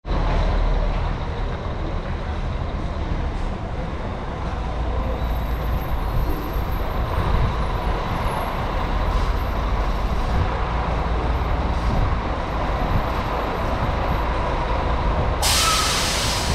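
Diesel bus engine running steadily, with a loud air-brake hiss lasting about a second near the end.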